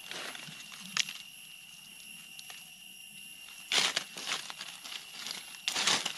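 Dry leaf litter crunching and rustling underfoot in a few short bursts, the loudest two in the second half, over a steady high-pitched tone.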